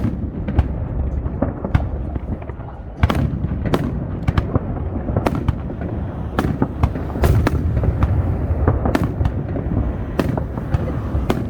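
Aerial fireworks display: a steady low rumble of distant bursts with many sharp bangs and cracks at irregular intervals, thickening from about three seconds in.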